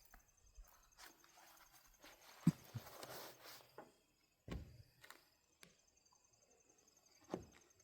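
Faint scattered knocks and clicks of objects being handled, a sharper tap about two and a half seconds in, with crickets chirping steadily in the background.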